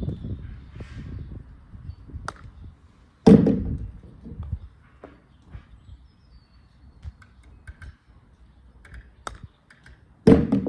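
Two golf chip shots: each time the sharp click of an iron striking the ball, then about a second later a loud hollow thunk as the ball lands in a red plastic bucket. Small clicks and taps come in between.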